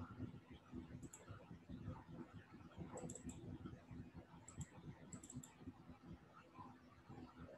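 Faint clicking of computer keys, in small clusters of two or three ticks every second or so, over low room noise and a steady faint hum.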